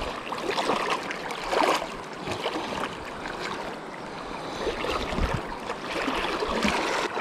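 Shallow, rocky river water running and lapping, with a couple of louder splashing strokes in the first two seconds.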